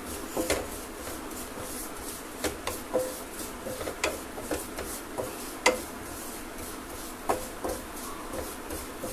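Spatula stirring coriander seeds in a coated metal pan, scraping and knocking against it in irregular clicks, a few ringing briefly; the seeds are being roasted in ghee on a low flame.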